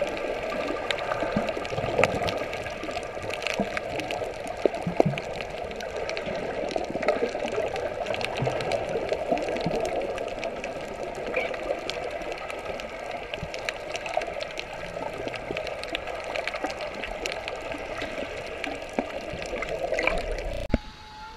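Underwater ambience picked up by a submerged action camera: a steady muffled water rush with many scattered sharp clicks and crackles and a faint steady hum. It drops away abruptly near the end.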